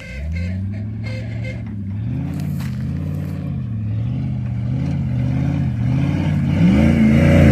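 Truck engine revving up and down in repeated swells as the truck approaches, growing louder toward the end.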